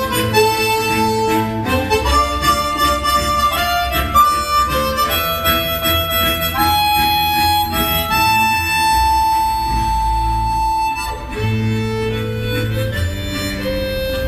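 Harmonica ensemble playing a slow tune in parts: a melody of held notes over chords and a low bass line. In the middle the melody holds one long high note, with a short dip in the sound just after it before the parts come back in.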